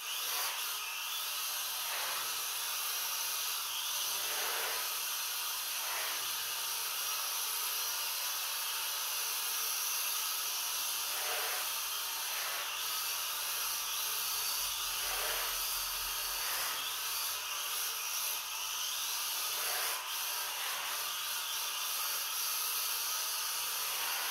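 Mini RC drift car's small electric motor whirring, its pitch dropping and rising again every few seconds as the throttle is eased and blipped, with the tyres rubbing across a tiled floor, all under a steady hiss.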